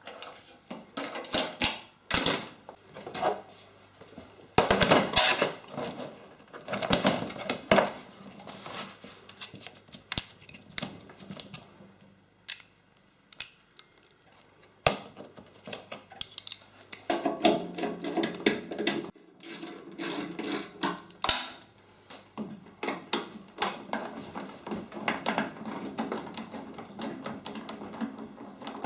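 Irregular clicking, tapping and clattering of hard objects and tools being handled, with a short buzzing hum a little past halfway.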